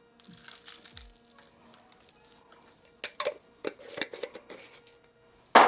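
Kitchen clatter on a wooden countertop: a faint rustle of flaky salt being sprinkled at the start, then a glass jar and dishes being handled with a run of sharp clicks about three seconds in, and one loud knock near the end.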